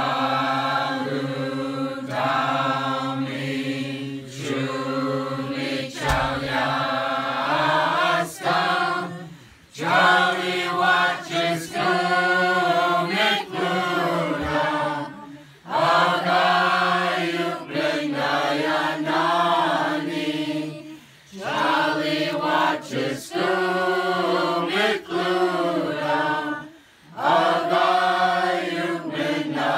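A group of people singing a Slaaviq (Orthodox Christmas starring) carol together, unaccompanied, in long sustained phrases with brief breaks for breath between verses.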